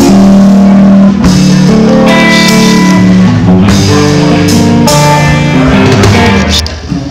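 Live band music: an electric guitar playing long held notes and lead lines over a drum kit, loud, with a short dip in loudness near the end.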